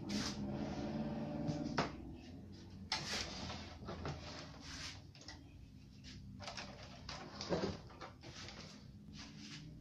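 Scattered knocks and light clatter from handling the plastic cabinet and circuit-board chassis of an old CRT television, with a faint steady hum in the first couple of seconds.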